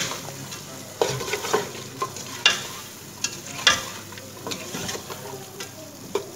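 Chopped carrots frying in oil and sauce in a metal pot, with a steady sizzle. A spatula scrapes and knocks against the pot about a dozen times at uneven intervals as they are stirred.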